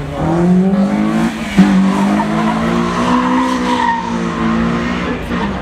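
Car accelerating hard from a standing start, its engine revs climbing and then holding high, with tyres squealing. There is a sharp click about a second and a half in, and the engine note drops away near the end.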